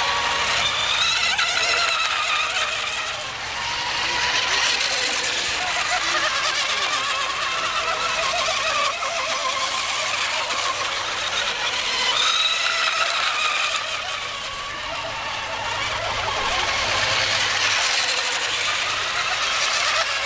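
Radio-controlled racing hydroplanes running flat out on the water: a high motor and propeller whine that rises and falls in pitch as the boats pass, over the hiss of spray.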